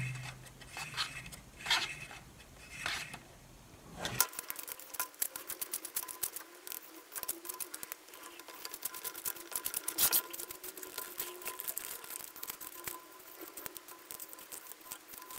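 Light plastic clicks and taps from a car instrument cluster being handled by hand as its speedometer needle is pushed back to its zero stop. A few separate clicks come first, then from about four seconds in a dense run of small ticks and taps.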